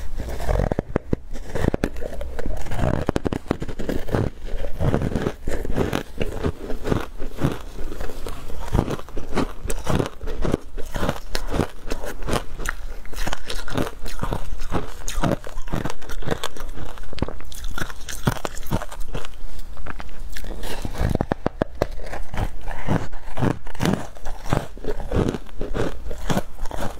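Close-up crunching of ice coated in matcha powder being bitten and chewed: a dense, unbroken run of sharp cracks and crunches as the ice breaks between the teeth.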